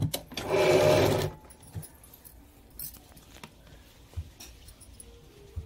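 Sewing machine running a short burst of stitches for about a second, then a few light clicks and knocks as the fabric and machine are handled.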